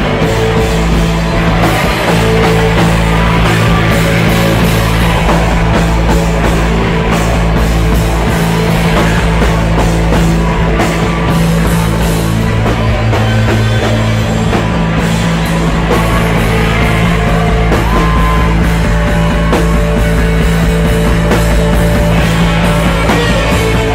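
A rock band playing a song, loud and continuous throughout.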